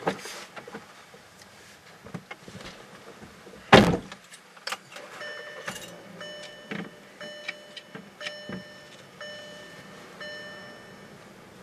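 The 2012 VW Beetle's in-cabin warning chime dings about once a second from about five seconds in until near the end. Before it comes one loud thump as the driver gets into the seat, with some rustling and clicks.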